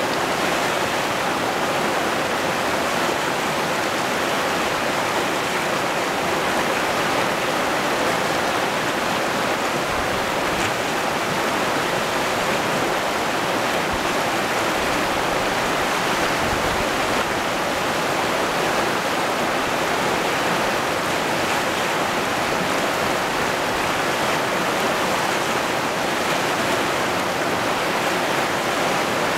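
Muddy river rushing over boulders through shallow rapids: a steady, unbroken rush of water.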